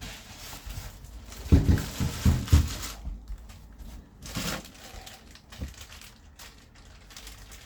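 Packaging crinkling and rustling as parts are lifted out of a box, with a few dull knocks between about one and a half and two and a half seconds in.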